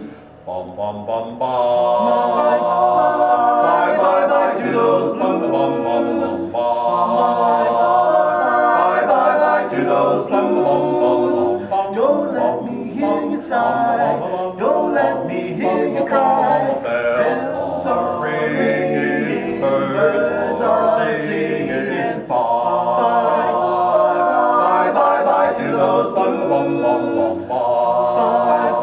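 Male vocal quartet singing a cappella, four voices in harmony, picking up again after a brief pause at the very start.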